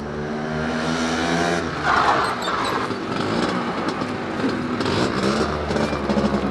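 Small engine of a Piaggio Ape three-wheeled light truck running as it drives up, with a brief louder noise about two seconds in.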